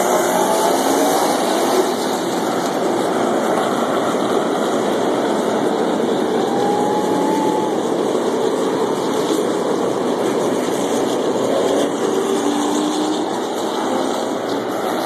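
Field of NASCAR Camping World Truck Series race trucks running at racing speed around the oval, their V8 engines making a loud, continuous drone.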